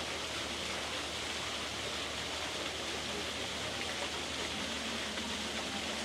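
Small waterfall splashing steadily over rocks.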